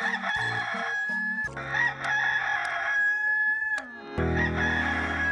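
Hollywood Edge 'Bird Rooster 2 Crow' stock sound effect: a rooster crowing with a long, held cock-a-doodle-doo, heard three times in a row with short breaks between.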